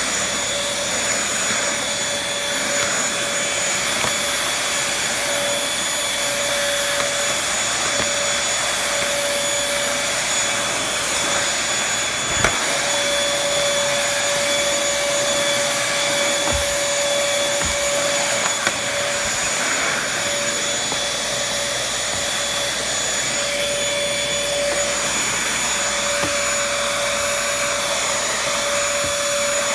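Vacuum cleaner running steadily, a constant motor whine over the rush of suction, with a few brief knocks about halfway through.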